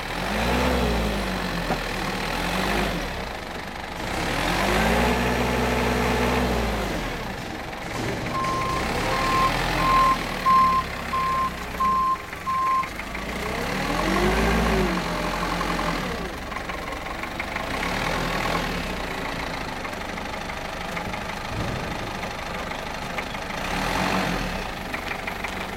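Forklift engine revving up and down several times while it works a bale clamp, with a reversing beeper sounding a run of about seven evenly spaced beeps in the middle.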